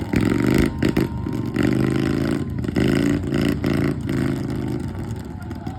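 Motorcycle engine revved in a string of short blips, its pitch rising and falling with each one.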